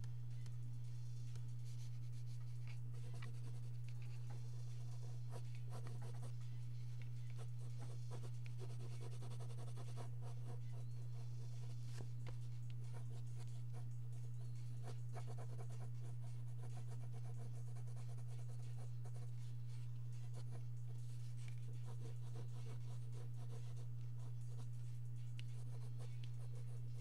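Pencil scratching and rubbing on paper in short, irregular strokes as a sketch is drawn. A steady low hum runs underneath and is the loudest thing heard.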